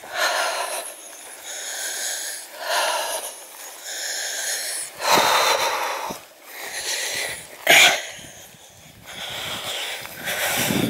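Heavy, wheezy breathing of a hiker walking in the heat, a noisy in-and-out breath roughly every second.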